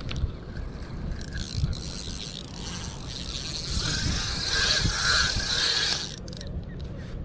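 Fishing reel being cranked: a steady mechanical whirring and clicking that grows louder about four seconds in and stops abruptly about six seconds in, over a low rumble.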